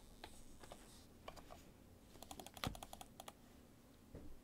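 Faint clicks and taps of chrome trading cards being slid and flipped through a stack by gloved hands, with one louder tap past halfway.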